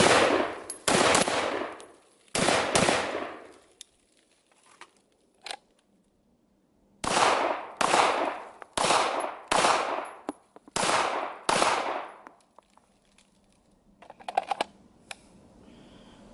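Two shots from a 5.56 AR-15 pistol with a 10-inch barrel in the first three seconds, each with a ringing tail. After a few seconds of faint clicks, six shots from a 9 mm Shadow Systems MR920 handgun follow, less than a second apart. Near the end there is a short rattle of small metallic clicks.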